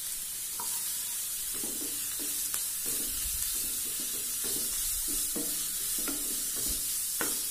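Grated carrot and chopped onion sizzling in hot oil in a kadai, under a steady hiss, while a wooden spatula stirs and scrapes them in repeated strokes, about two a second.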